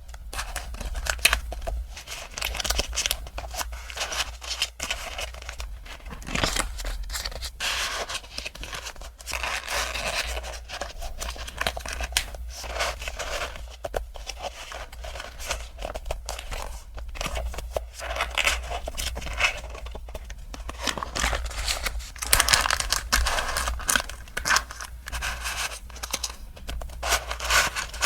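Packaging being unwrapped by hand: close-up rustling, crinkling and tearing, with many small clicks and taps, busiest twice over.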